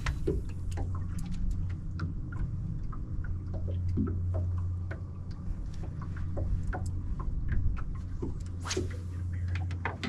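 Steady low hum of the bass boat's motor, with scattered light clicks and taps and a little water noise.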